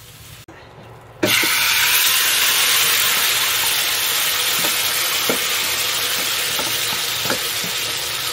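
Chicken, chestnuts and sauce sizzling as they are tipped from a wok into a hot clay pot. The loud hiss starts suddenly about a second in and runs on steadily, with a few light knocks of a wooden spatula.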